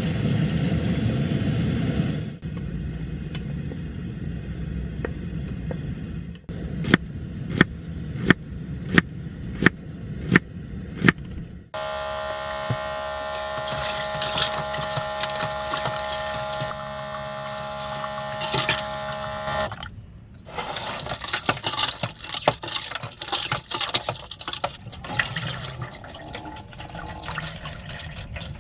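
Food preparation sounds: a run of sharp knocks, then a steady tone for several seconds, then water running and splashing.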